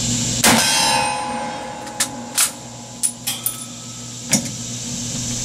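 A single shot from a 1943 Mosin-Nagant bolt-action rifle in 7.62x54R, about half a second in, loud with a long ringing tail. It is followed by a string of about six sharp metallic clicks and clacks over the next couple of seconds as the bolt is worked open and back to clear the rifle.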